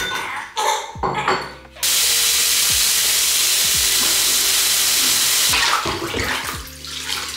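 Handheld shower spraying water into a bathtub: a steady rush of water that starts about two seconds in and stops about two seconds before the end.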